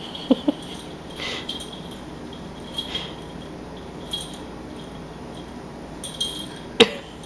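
Scattered light clicks and faint jingling from a cat playing with a dangled string toy, with one sharper click near the end.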